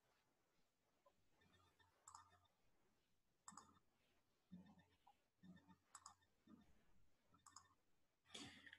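Near silence with a faint click every second or so: a computer being operated with the mouse and keyboard while the screen is switched over to a shared slide.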